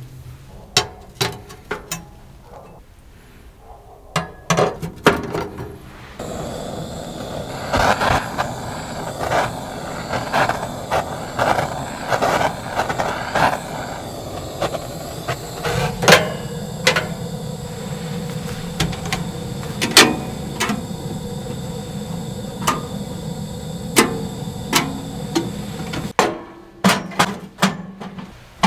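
Irregular knocks and clicks of things being handled. A steady background noise starts about six seconds in and cuts off near the end.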